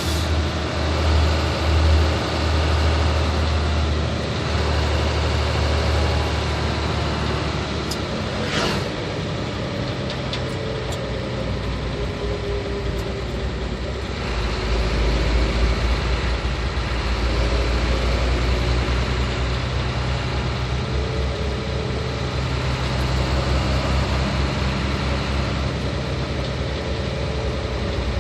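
Hino 500 truck's diesel engine running steadily under way. Its low note shifts about four seconds in and again about fourteen seconds in.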